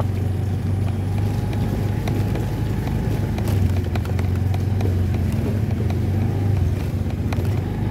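Motorcycle engine running steadily at low speed while being ridden over a rough, damaged road, with a few sharp clicks scattered through.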